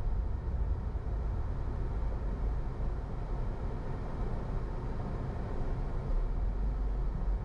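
A car driving, heard as a steady low rumble of engine and road noise with no distinct events.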